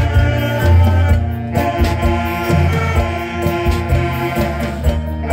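Saxophone ensemble of alto and tenor saxophones playing a melody together over a deep bass line. The tune breaks off briefly about a second in and again near the end.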